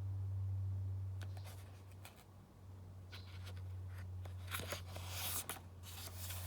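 Paper rustling as a page of a paper book is turned and handled: a series of short, crisp swishes that grow busier in the last two seconds, over a low steady hum.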